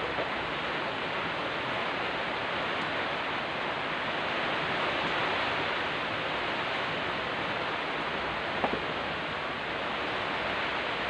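Steady rushing noise of a typhoon storm: heavy rain and wind outside. A single sharp knock sounds about eight and a half seconds in.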